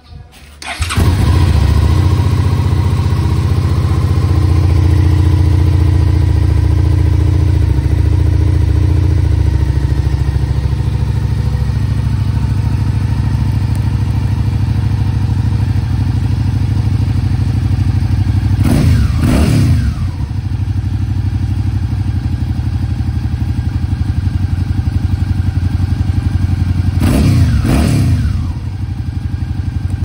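Suzuki SV650X V-twin engine running through a Leo Vince LV One Evo slip-on muffler with its baffle in. It starts up about a second in and then idles steadily, with two short throttle blips, one about two-thirds of the way through and one near the end. With the baffle in, the exhaust is only a little louder than stock.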